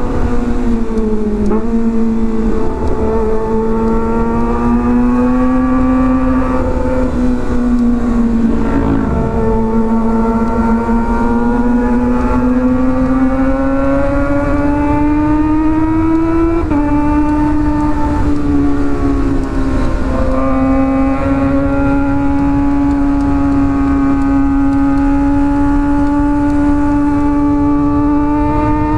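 Kawasaki ZX-25R's inline-four engine through an Arrow aftermarket exhaust, running at part throttle while cruising in fourth and fifth gear. Its note rises and falls gently, dips briefly a few times, and steps up suddenly about two-thirds of the way through, over a steady rush of wind.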